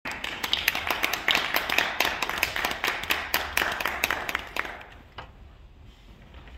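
Small audience applauding, a quick patter of hand claps that dies away about five seconds in, followed by a single soft knock.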